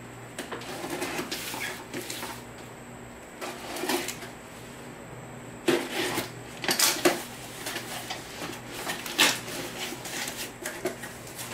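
A knife slitting the packing tape and cardboard of a shipping box, in short scratchy strokes with pauses between them; near the end the cardboard flaps rustle as they are pulled open.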